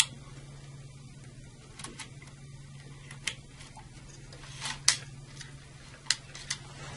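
Plastic connectors on a circuit breaker motor operator's secondary leads being pushed into the secondary terminal bracket: a series of sharp, irregularly spaced clicks, the loudest about five seconds in, over a steady low hum.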